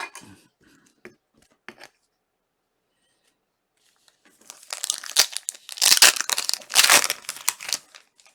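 A Panini World Cup trading card pack's wrapper being torn open and crinkled, starting about four seconds in and loudest in the middle, after a few faint taps.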